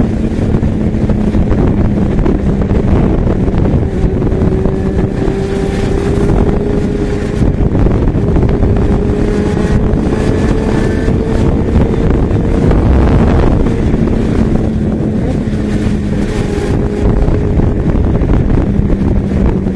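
Yamaha XJ6's inline-four engine running steadily at highway speed, its pitch rising slowly through the first half, with wind rushing over the microphone.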